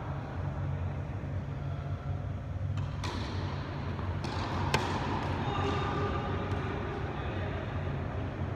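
Tennis rackets hitting a ball and the ball bouncing on an indoor court: a few sharp hits, the loudest about halfway through, over a steady low hum in the hall.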